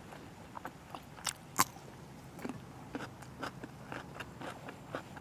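Close-miked bite into a fresh green chili pepper, a sharp crunch about a second and a half in, followed by steady chewing sounds about twice a second.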